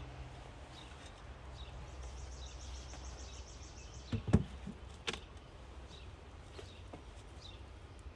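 A wooden beehive being opened: a cluster of knocks and a bang about four seconds in, and another knock a second later, over a steady low hum. A rapid high ticking trill runs for a couple of seconds before the knocks, with faint bird chirps.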